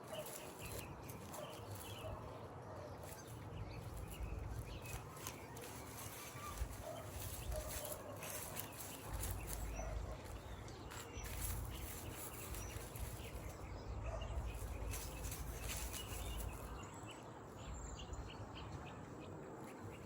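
Rustling and crackling of plants, roots and soil being pulled and handled, with faint bird calls and an on-and-off low rumble.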